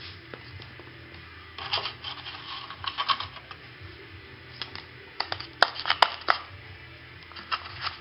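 Handling noise of foam cups and thermometer probe wires being set in place in a freezer: scattered clicks, taps and rustles in short clusters, the sharpest clicks a little past halfway.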